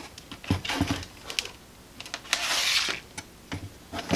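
Clicks, knocks and a short scraping rustle as filter capacitors and wires are handled and tucked up into a radio chassis. The rustle comes a little over two seconds in, with scattered clicks before and after.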